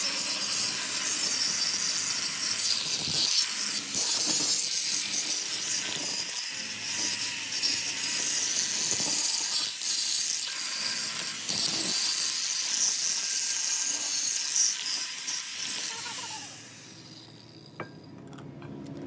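Metalworking on a steel truck axle: a loud, steady, harsh hiss that dies away over about two seconds near the end.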